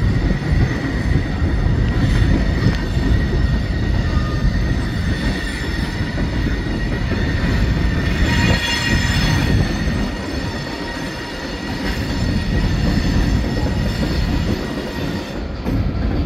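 Locomotive consist of Terminal Railroad units and Norfolk Southern SD70ACU diesels rolling over a steel trestle bridge, with a steady low rumble of engines and wheels on the steel structure. A high, steady wheel squeal runs over it and swells to its loudest about eight to nine seconds in.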